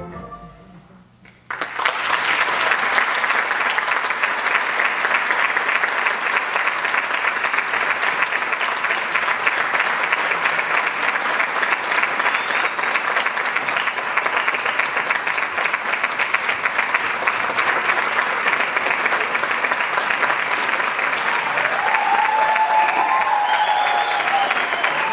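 Audience applauding: after a moment of quiet, clapping starts suddenly about a second and a half in and stays steady, with a voice or two calling out near the end.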